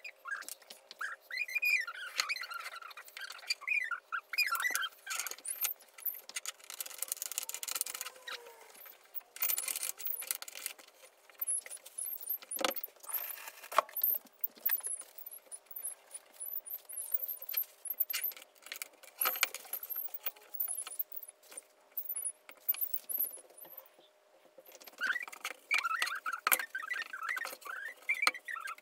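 Ratchet strap being tightened around a glued wooden frame: its metal buckle jangles and the ratchet clicks in quick runs, followed by a few sharp knocks. High warbling chirps are heard at the start and again near the end.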